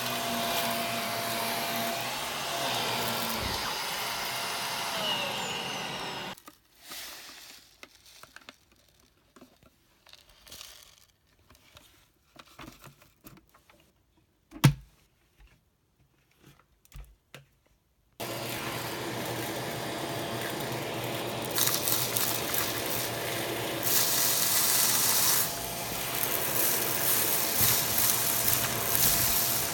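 Shark vacuum cleaner running with a steady motor hum, cutting off about six seconds in. About twelve quiet seconds of small clicks and handling noises follow, with one sharp knock midway. Then the vacuum runs again, louder in places as it works.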